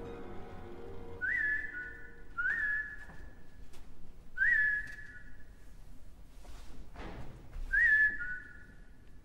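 Solo flute playing four short high notes spaced a few seconds apart, each flicking up and then held briefly, with a short breathy rush of air between the third and fourth.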